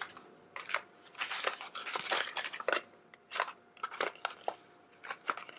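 Paper rustling and crinkling as a collector's guide sheet is handled, a string of short, irregular crackles and clicks.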